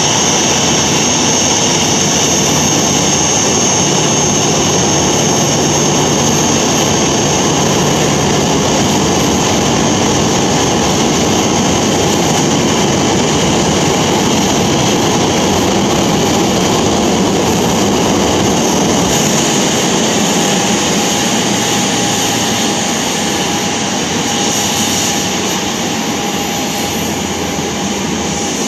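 Boeing 737-800's CFM56-7B turbofan jet engines running at taxi idle: a steady jet rumble with a high steady whine, easing slightly in the last few seconds.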